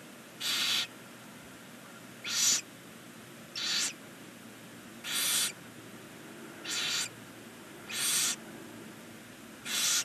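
Barn owl giving its rasping hiss, the snoring call of barn owls at the nest, seven times at about a second and a half apart.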